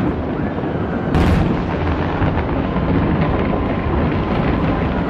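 Distant fireworks going off in rapid succession, merging into a continuous rumble of booms with fine crackling, with one louder bang about a second in.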